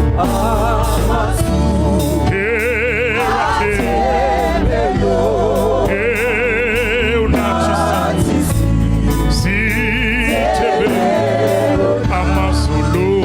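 Gospel music with a choir singing long held notes with vibrato over a steady bass accompaniment.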